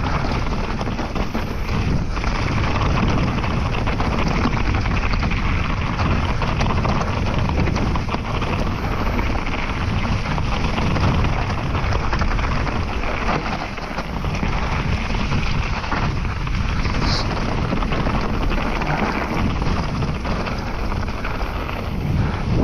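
Wind buffeting an action camera's microphone while riding a Trek Remedy 7 mountain bike down a trail. A steady rushing noise with heavy low rumble runs over the tyres rolling on dirt, with a few faint knocks from the bike.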